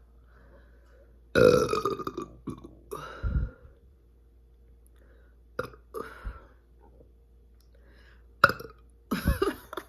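A run of burps brought on by chugging carbonated Coca-Cola: a long loud burp about a second and a half in, a shorter one just after, then smaller burps spaced out, and two more near the end.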